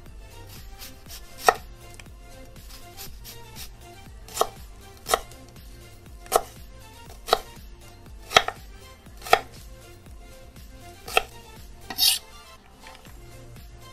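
Chef's knife cutting an onion on a wooden cutting board: sharp knocks of the blade reaching the board, spaced irregularly about a second apart, with fainter taps between and a longer, rougher stroke near the end.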